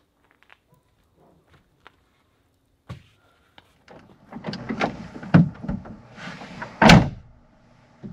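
Bumps, knocks and rustling of someone moving about inside a pickup-bed camper shell, with two heavy thuds, the louder one near the end, like a hatch or door being shut.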